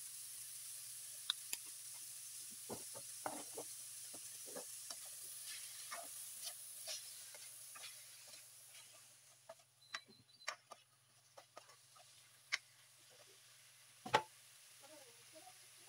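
Julienned chayote and carrots sizzling faintly in a nonstick wok, with a spatula clacking and scraping against the pan as they are stirred. The sizzle fades about halfway through, and a louder knock comes near the end.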